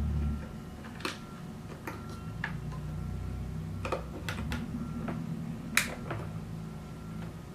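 Scattered small plastic clicks and taps from a ribbon cable being handled and its connector pressed onto the JP12 header of a spa pack's circuit board, about ten in all. The sharpest click comes about three-quarters of the way through. A low steady hum runs underneath.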